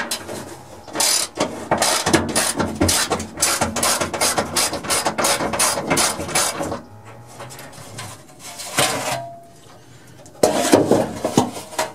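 Socket ratchet wrench clicking in quick runs for about six seconds as it loosens the bolts of a steel truck-bed panel. A louder metallic clatter follows near the end.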